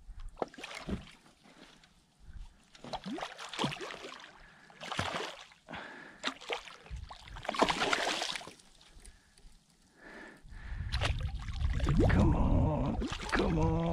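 Hooked redfish splashing at the surface beside a kayak in irregular bursts as it is played toward a landing net. From about ten seconds in a loud low rumble takes over, with a brief grunt-like vocal sound near the end.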